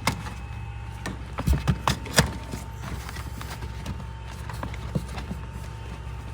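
A few short knocks and clicks of plastic trim and wiring being handled in a car's trunk, several in quick succession about a second and a half in, over a steady low hum.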